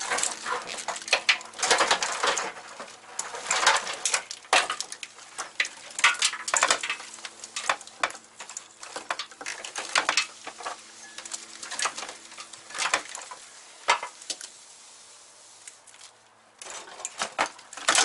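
Irregular clicking, rattling and rustling of a Volkswagen Corrado's engine wiring harness as loose wires, plastic connectors and loom are pulled apart and sorted by hand, with a quieter lull a little before the end.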